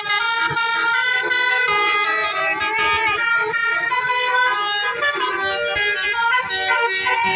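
Telolet multi-tone horn playing a fast melody: several horn tones sounding together and switching notes every fraction of a second, with one brief rising-and-falling glide about three seconds in.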